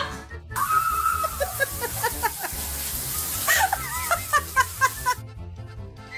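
Heavy rain pouring down in a steady hiss, with high-pitched voices calling out and shrieking over it. The rain cuts off suddenly about five seconds in, with background music running underneath.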